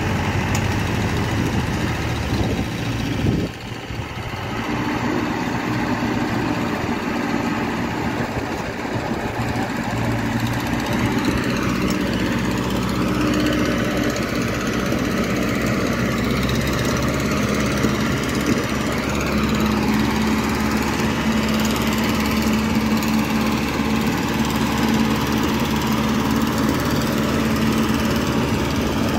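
Diesel engines of a Kubota L4508 tractor and a Kubota DC-68G combine harvester running steadily under load as the tractor tows the harvester, stuck in mud, on a taut rope. There is a brief dip in the sound about three and a half seconds in.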